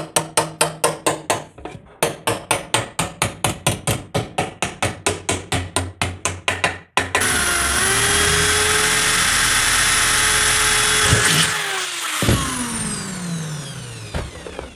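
A hammer strikes an aluminium rail, about five blows a second, driving it into an aluminium tube. About seven seconds in, a corded electric drill runs steadily, boring into the aluminium tube for rivet holes. After a single knock, the drill's motor winds down, its pitch falling.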